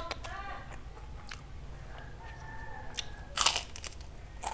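A crisp kerupuk cracker crunching once as it is bitten, about three and a half seconds in, the loudest sound, with a few smaller cracker snaps around it. A cat's meow trails off at the start, and a long steady animal call runs from about two to three seconds in.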